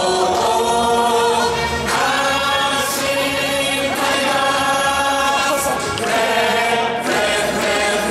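A choir singing with music in long held phrases, a sung anthem.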